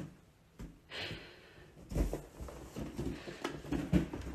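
Soft, irregular thumps and light rustling as a cat bats a clear balloon about on a carpeted floor, with a brief hiss about a second in.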